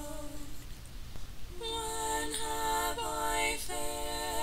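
Unaccompanied women's voices singing a slow, repeated refrain in harmony. A held note fades out about half a second in, and after a short pause the voices come back in with long held notes.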